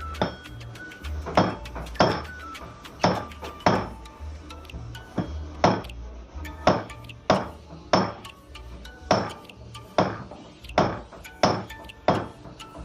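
Repeated hammer blows, struck at a steady pace of about one every two-thirds of a second, each with a short ring, pausing briefly about four seconds in.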